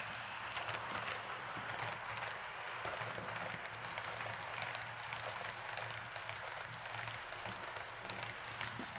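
Märklin model freight train running past on its track: a steady clatter of many small metal wheels with rapid clicks over the rail joints, over a low steady hum. Part of the rattle is the locomotive's sliding centre-rail pickup shoe (the 'ski'), which gives the train its particular sound.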